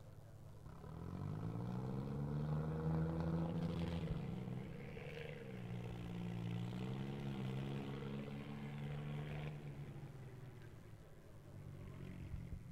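Swaraj 963 FE tractor's diesel engine revved hard at full throttle: the pitch climbs over the first couple of seconds, dips briefly about four seconds in, then holds high while the tractor rears up on its back wheels, and drops away near the end.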